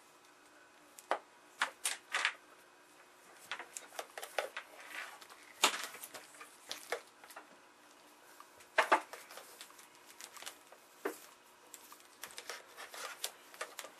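Electrical cords being handled and untangled over the tester's metal front panel: irregular clicks, taps and rustles as cables and plugs knock and drag about, the sharpest a few times through.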